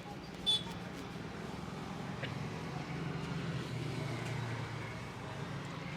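Street traffic: a motor vehicle engine running with a steady low hum that swells a little around the middle. A brief high chirp sounds about half a second in.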